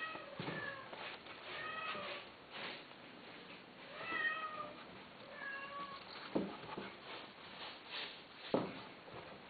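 Caged cat meowing repeatedly, about five meows over the first six seconds, with two sharp knocks later on.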